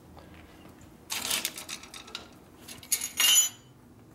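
Metal scraping and clinking as a screwdriver works the spring clips onto a Harley Shovelhead's pushrod tube covers. Near the three-second mark comes a louder sharp metallic clack with a brief ring.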